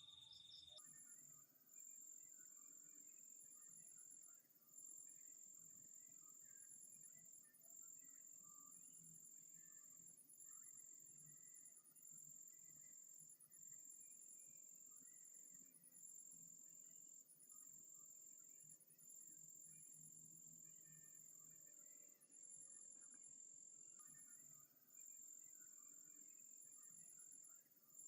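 Faint insects trilling: one steady high trill that breaks off briefly every second or two, with another insect chirping above it in short, quick pulse trains.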